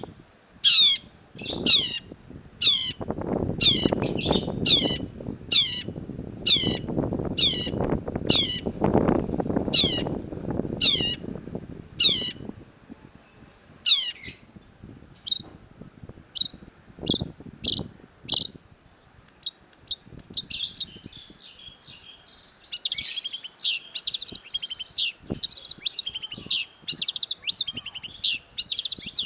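Long-tailed shrike calling: a steady series of sharp, high, downward-slurred notes about two a second, thinning to single short notes, then breaking into a fast, continuous chattering warble in the last third. A low background rumble sits under the first half.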